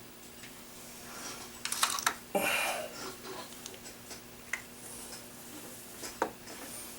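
Small clicks and taps of bench work on a clock movement: metal parts and hand tools being handled, with a cluster of quick clicks about two seconds in, a short scraping sound just after, and a few single clicks later, over a steady low hum.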